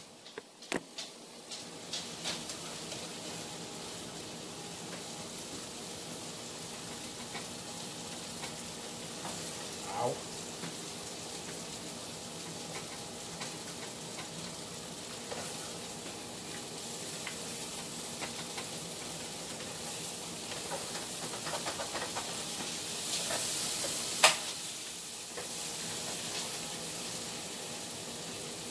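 Chicken frying in olive oil in a pan, sizzling steadily. A few light clicks come near the start and one sharper click near the end.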